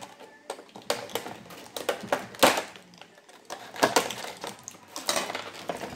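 Plastic blister packaging and zip ties being worked open by hand: irregular clicks and crackles, with a few sharper clicks spread through.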